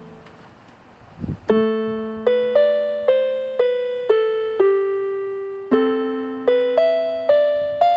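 Solo keyboard music with a piano sound: a slow melody of single struck notes, each fading, over held lower notes, climbing in pitch near the end. A low thump comes just before the notes resume, a little over a second in.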